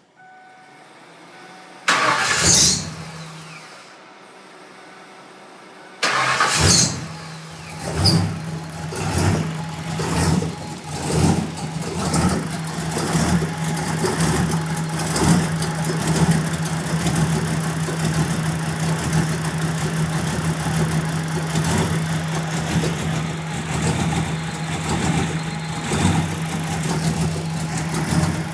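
1994 Ford Mustang's 5.0-litre V8 being started: a short burst about two seconds in, then it fires about six seconds in, surges unevenly for several seconds and settles into a rough idle.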